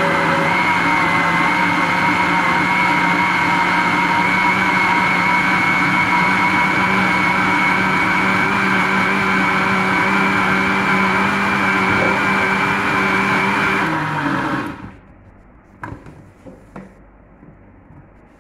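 Electric countertop blender running steadily at full speed, puréeing bananas, with a steady hum and a high whine; it is switched off about fourteen seconds in and winds down quickly. A few light knocks follow as the jar is handled.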